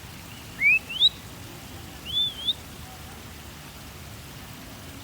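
A bird calling in short whistled notes: two quick rising whistles about half a second in, then one wavering whistle at about two seconds, over a steady background hiss.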